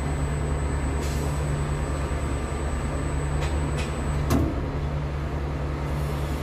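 Steady low machinery hum of a tower crane heard from its operator's cab during a lift, with a few sharp clicks, the loudest about four seconds in.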